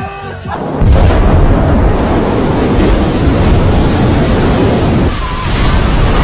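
Deep, loud rumbling roar of a large underwater explosion, starting suddenly about a second in and holding steady. Near the end it gives way to a hissier rushing roar of a big wave surging ashore.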